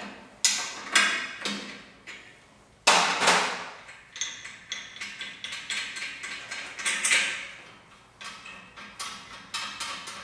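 Metal clanks and clicks of an open-end wrench and bolts as the bolts holding a drilling alignment fixture to an engine block are loosened and taken out. A loud clank comes about three seconds in, followed by a run of lighter, quicker clicks.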